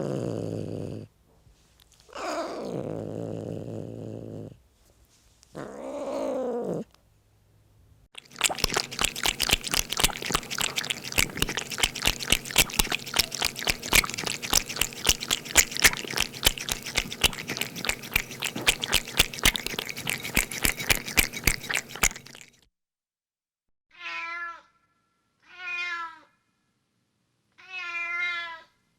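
Domestic cat sounds in sequence: a short low growl, two drawn-out meows, then about fourteen seconds of rapid wet clicking as a cat laps up milk, ending with three short high-pitched meows.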